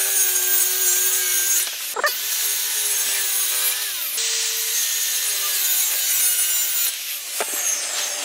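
Handheld circular saw cutting a foam-core epoxy composite panel: a steady motor whine over a dense cutting hiss, in three long passes with brief breaks between them, stopping about seven seconds in.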